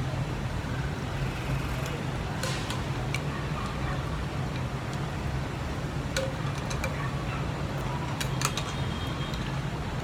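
Steady low hum of city traffic, with a few light clicks and clinks of chopsticks against the hotpot and dishes.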